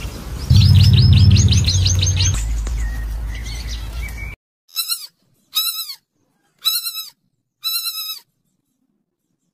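Rat squeaking in a quick run of high chirps over a low hum. Then four short piglet squeals about a second apart, each rising and falling in pitch.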